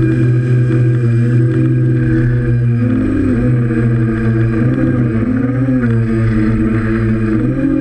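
DJI F550 hexacopter's electric motors and propellers running in flight, heard from its on-board camera: a steady hum of several close tones whose pitch wavers up and down as the motors change speed.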